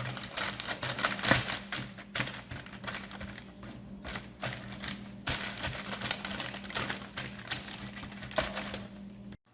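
A metal spoon scraping and pressing sticky marshmallow-coated cereal into a tray, with rapid irregular clicks and crunches of the crisp cereal, under a faint steady hum.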